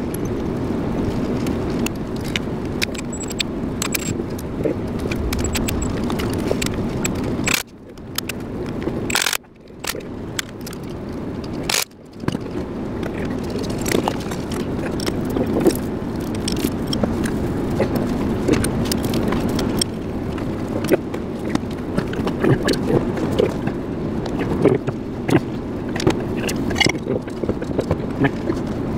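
Metal clinks and scrapes of a wrench working the bolts on an air compressor cover, over a steady low rumbling background noise.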